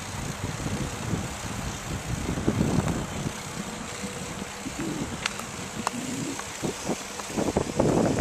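Riding noise from a recumbent trike rolling along a dirt trail: an uneven rumble of wind on the microphone and tyres on the ground. Two sharp clicks come about five and six seconds in.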